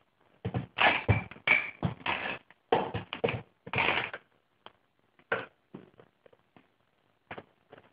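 Irregular knocks and clatter from steam-bending wooden canoe gunwales on a jig: a quick run of them over the first four seconds, then a few scattered ones.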